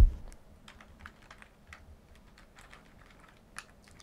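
Aula gaming keyboard keys and plastic keycaps clicking as they are handled, a keycap removal tool in use: one loud click right at the start, then scattered light, irregular clicks.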